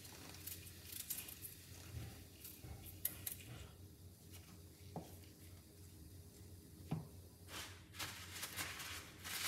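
Faint kitchen room tone with a low steady hum, broken by a few scattered small clicks and rustles of handling, one louder about seven seconds in.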